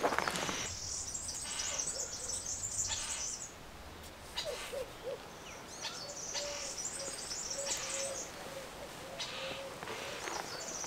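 Wild birds singing in woodland: bursts of high-pitched twittering trills come three times, and about halfway through there is a faint run of short, even, low hooting notes.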